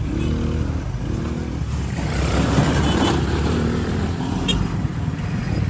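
ATV engine running steadily while riding an off-road trail, with a stretch of rougher noise about two to three seconds in and a sharp click near the end.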